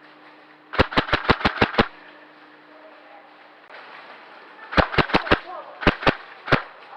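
Airsoft gunfire: a quick string of about seven sharp shots about a second in, then a run of four, then three more spaced shots near the end.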